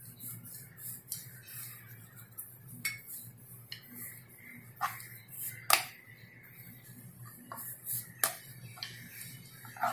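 Rolling pin working dough on a round wooden board: quiet rolling with a dozen or so scattered light clicks and knocks as the pin and board shift, the loudest a little past halfway.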